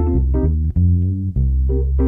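Music: keyboard chords over a strong bass line, the chords changing every half second or so.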